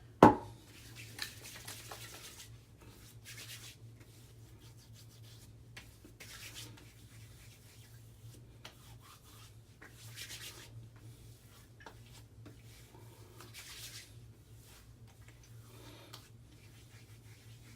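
Hands rubbing aftershave balm into freshly shaved skin in a series of soft strokes, after a sharp knock at the very start.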